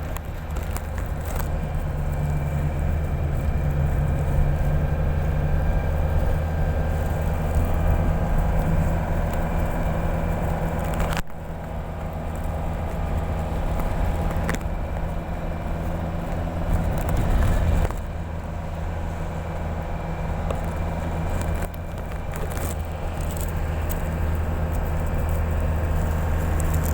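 A steady, low engine-like drone of fixed pitch with some crackle over it, changing abruptly three times where the footage is cut.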